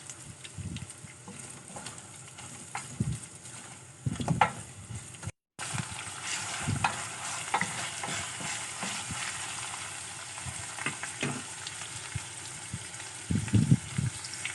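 Shredded chicken for pastil frying in a pan with a steady sizzle while it is stirred, a utensil scraping and knocking against the pan now and then. The sound drops out briefly at a cut about five seconds in.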